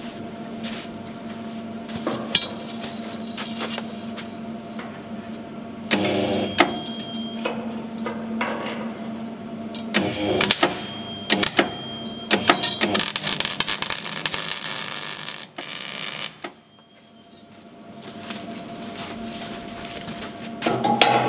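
MIG welder tacking a bent U-shaped strip of steel onto a steel hull plate, crackling in short bursts and then in one longer run of about three seconds near the middle, among sharp metal clanks from the steel and a steel bar. A steady hum runs underneath.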